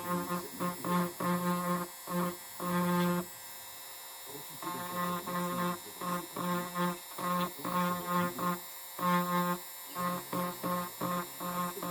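Electric engraver buzzing in short, irregular spurts, switching on and off again and again, with a pause of about a second around three seconds in.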